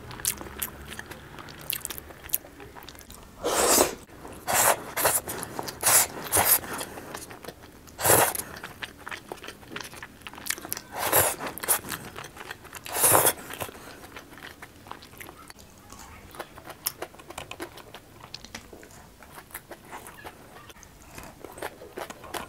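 Close-miked eating sounds of a person chewing spaghetti bolognese. There is a run of short, loud mouth bursts between about 3 and 13 seconds in, then softer chewing and mouth clicks.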